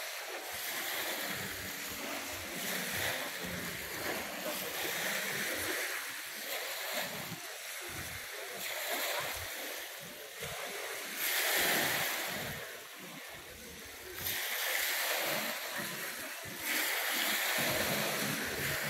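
Small waves washing onto a sandy beach, a hissing wash that swells and falls back every few seconds, loudest about eleven seconds in.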